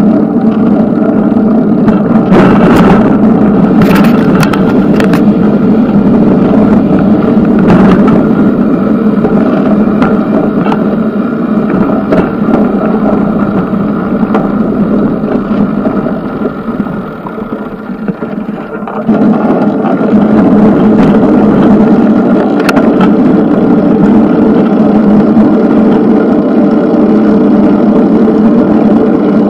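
Steady, loud riding noise from a moving bicycle: road rumble and wind on the camera, with a few sharp knocks from bumps. It eases off for a few seconds and comes back suddenly about two-thirds of the way through.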